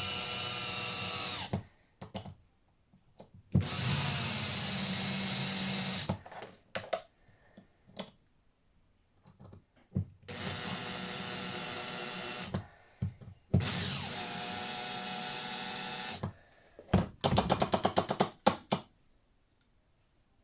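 Small power drill drilling out the rivets on a diecast model car's baseplate, running in four bursts of two to three seconds each with a steady whine. Near the end comes a quick run of sharp clicks.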